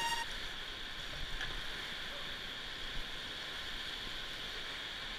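Steady rushing of whitewater rapids.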